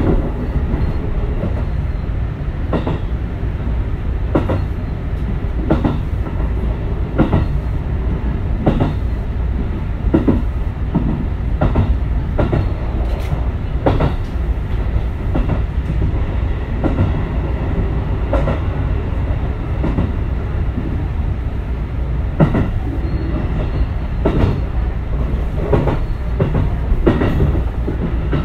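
JR West 221 series electric train running at steady speed, heard from inside the carriage: a continuous low rumble, with the wheels clacking over rail joints about every second and a half.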